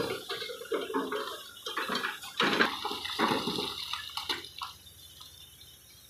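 Broken stone clattering and sliding from an excavator bucket into a steel dump-truck bed, in irregular bursts of rattling impacts that die away toward the end.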